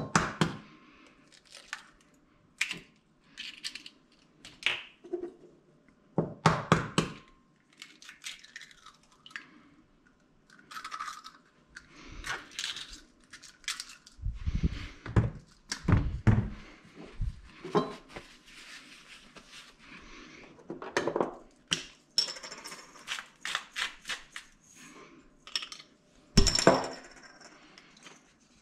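A run of separate taps, knocks and clatter as eggs are rapped and cracked against a small ceramic bowl and the shells and kitchen items are handled. Heavier dull thumps come about halfway through, and a sharp knock comes near the end.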